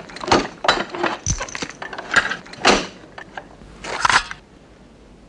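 Metallic clacks and clicks of a belt-fed MG 34 machine gun being loaded: the cartridge belt laid into the feed, the cover snapped shut and the cocking handle worked. About half a dozen sharp clacks, the loudest near the middle and a final cluster about four seconds in.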